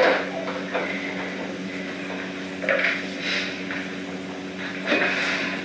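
A steady low machine hum with a few brief scuffs and knocks, a second or two apart, of someone moving about a room and handling things.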